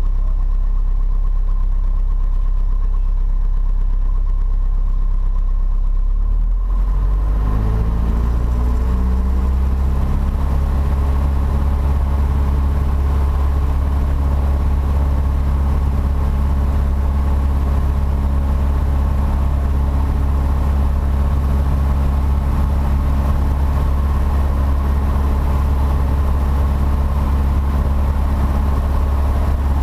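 Piper PA-28-140 Cherokee's four-cylinder Lycoming O-320 engine, heard from inside the cabin, idling low and then speeding up about seven seconds in to hold a steady higher speed, as for a pre-takeoff run-up.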